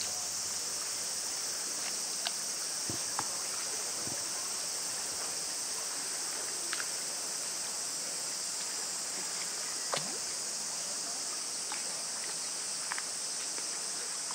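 Steady high-pitched drone of insects, with a few faint scattered clicks and ticks.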